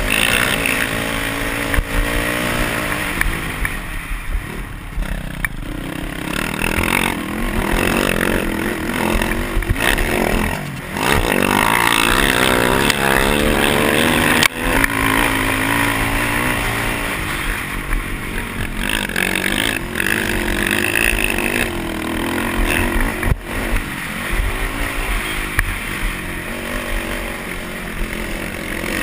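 A race quad's engine running flat out, its pitch rising and falling as the throttle is worked and it shifts, with a brief dip about ten seconds in.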